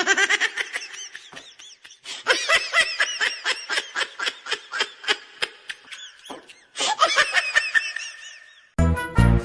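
Laughter: a long run of short, rhythmic bursts at about three or four a second, with a brief pause about two thirds of the way through. Music with a strong beat cuts in near the end.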